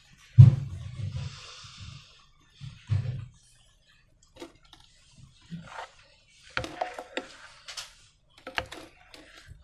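Hands working slime and balloons: a couple of soft low thuds, then scattered sticky clicks and crackles as the slime is squished and pulled.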